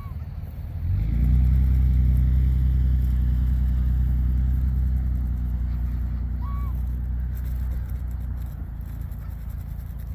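A motor vehicle's engine running close by: a steady low rumble that comes in suddenly about a second in and slowly fades over the second half. Two brief bird chirps sound, one at the start and one past the middle.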